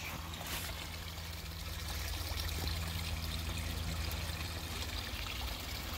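Small garden pond waterfall: water trickling and pouring steadily over stacked rocks into the pond.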